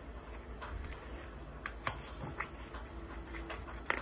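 A few faint, scattered clicks and light rustles of paper being handled, over a low steady room hum.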